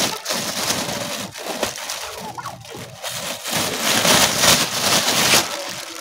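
Plastic carrier bag crinkling and rustling as it is handled, louder about four seconds in.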